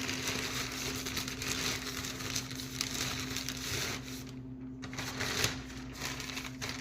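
Rustling and light crackling of things being handled and moved about in a search for a magnet, over a steady low electrical hum.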